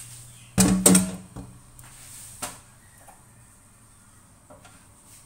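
Wok set down hard: two loud clanks about a third of a second apart that ring briefly, followed by a few lighter knocks.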